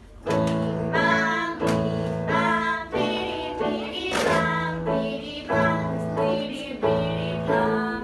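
Children and a woman singing a children's song in short phrases over sustained electronic keyboard chords.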